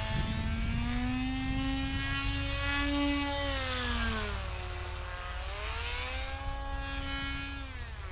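Electric motor and propeller of a radio-controlled model paramotor (Peer XL ProUltralight drive) flying overhead: a steady buzzing hum whose pitch climbs slowly, dips in the middle, rises again and drops near the end.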